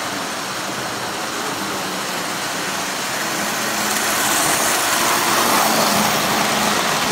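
O gauge three-rail model train, a Santa Fe-painted diesel pulling aluminum passenger cars, rumbling along tubular tinplate track. It gets louder about four seconds in as it passes close by.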